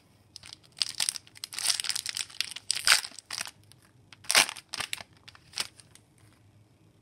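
Foil wrapper of a hockey card pack being torn open and crinkled by hand: a run of crackling rustles, with the loudest crackles about three and four and a half seconds in, dying away about six seconds in.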